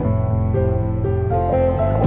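Background music of sustained guitar and string notes, gentle and slow.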